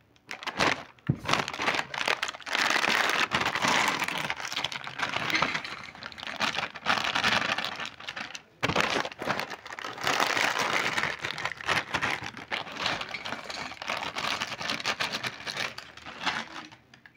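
Foil potato-chip packets crinkling and rustling as they are opened and shaken out, with the chips clattering onto a steel plate. A brief pause about halfway through between the two packets.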